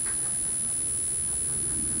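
A garden hose sprays water over a soapy car in a steady hiss, with a low rumble on the microphone underneath. A constant high-pitched whine runs on top.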